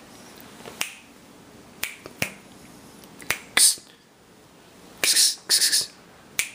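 Irregular sharp clicks, about five, with three short hissing bursts, two of them close together a little past halfway.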